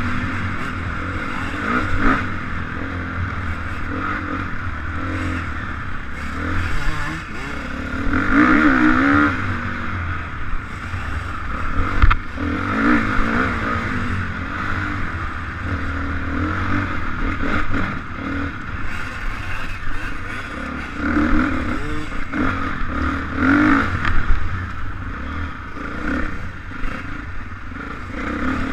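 Honda dirt bike engine running under load, its pitch rising and falling several times as the throttle is worked over the rough trail, with wind buffeting the helmet-mounted microphone and the bike rattling over bumps.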